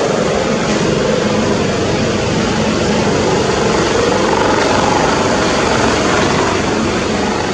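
Dauphin 2 helicopter taking off, its rotors and turbines running loud and steady, with a faint tone in the noise that wavers slightly.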